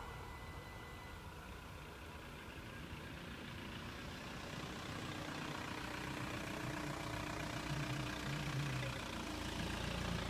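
A road vehicle's engine running steadily, growing louder from about halfway, while the passed train's noise dies away at the start.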